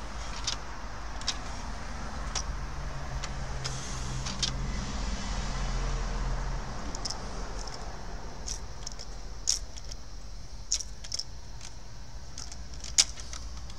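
Small plastic clicks and taps from hands lifting and working the stiff disc-clamp arm of a 1988 Magnavox CDB582 CD player's tray mechanism, scattered irregularly with two sharper clicks near the end, over a steady low hum that swells for a few seconds in the middle.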